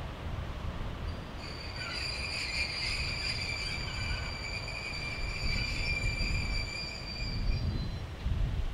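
Freight train behind two diesel locomotives rolling through the yard, its wheels squealing on the rails: one steady high squeal begins about a second in and fades out near the end, over a low rumble.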